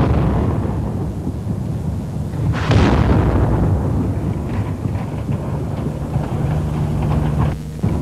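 Artillery shell explosions: a blast at the start and a heavier boom about two and a half seconds in, each rolling away over a continuous low rumble.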